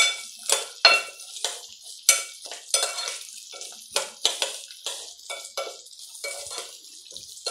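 Metal spoon stirring rice and carrots in a pot, scraping and clinking against the pot's sides in quick strokes about twice a second.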